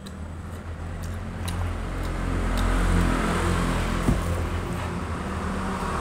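Low engine rumble of a motor vehicle, growing louder over the first three seconds and then holding steady. A single sharp click about four seconds in.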